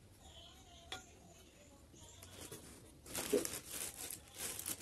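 Plastic wrapping crinkling and rustling in irregular bursts as a new aluminium pot is handled and unwrapped, starting about three seconds in after a quiet stretch with one faint click.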